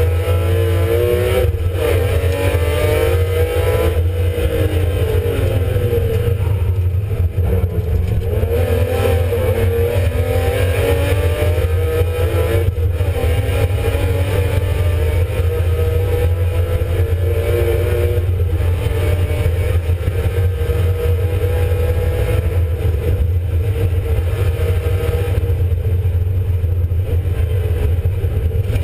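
BMW Compact E36 rally car's engine, heard from inside the cabin, revving hard through the gears at racing speed. Its pitch climbs and drops again and again in the first half, then holds steadier, over a constant low rumble.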